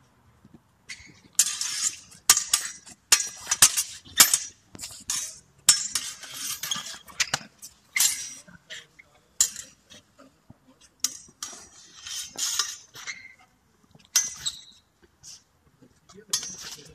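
Heavy steel sabres clashing, blade on blade, in sharp ringing clinks. A dense flurry of strikes fills the first half, then single clashes come scattered with pauses between.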